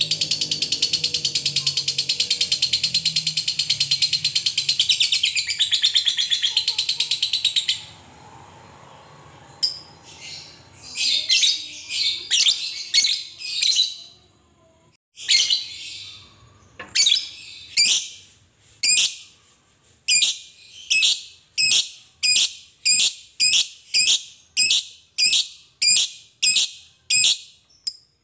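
Fischer's lovebird giving its long ngekek: a fast, unbroken, shrill chattering trill for about eight seconds. After a short break it makes separate shrill calls, which settle into an even run of about three calls every two seconds.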